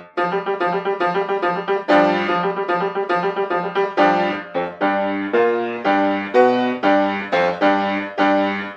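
Solo piano playing a lively dance passage of quick struck notes and chords, several a second, with a few longer-held chords between the runs.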